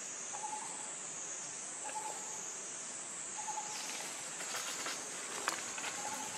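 Steady high-pitched insect drone, with a short hooting call repeated about every second and a half. From about two-thirds of the way in there is light rustling in dry leaves and one sharp click.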